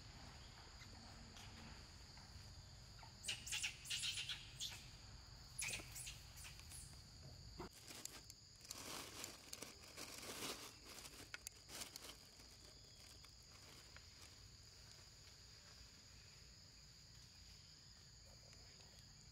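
Faint, steady high-pitched insect drone in two high bands, with brief scattered crackles between about three and twelve seconds in.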